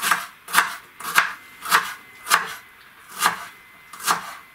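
Kitchen knife slicing through a small onion and striking a wooden cutting board, in a slow steady rhythm of a little under two cuts a second, with one short pause past the middle.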